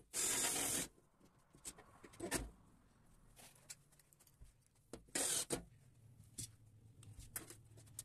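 Work on plastic wiring duct in a steel electrical enclosure: two short bursts of harsh rasping noise, one right at the start and a shorter one about five seconds in, with light clicks and knocks of handling in between.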